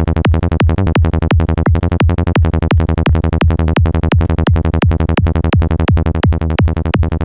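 Synthesized psytrance bass from a Sylenth1 patch looping a fast run of short repeated notes at 170 BPM, about five or six a second, with a heavy deep low end, played through a compressor set to a 4:1 ratio with a short release.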